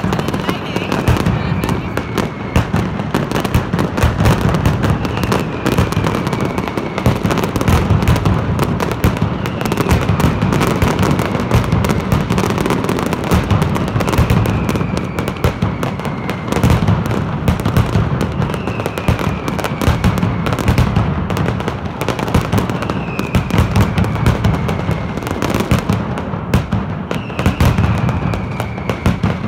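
Mascletà: a dense, continuous barrage of masclet firecrackers going off in rapid succession. A falling whistle sounds about every four seconds.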